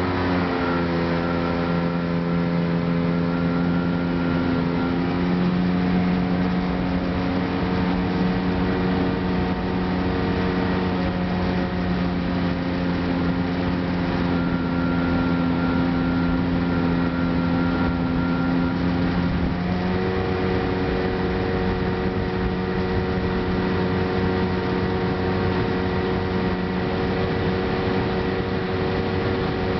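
Jet boat engine running steadily at a cruising speed, heard from aboard. Its note shifts slightly about two-thirds of the way through, then holds steady again.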